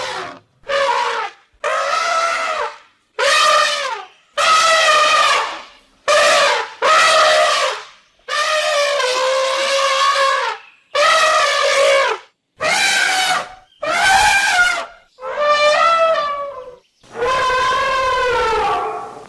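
African savanna elephant trumpeting: a long series of about a dozen loud, brassy trumpet calls, each half a second to two seconds long, with short pauses between them. Some calls fall in pitch at the end.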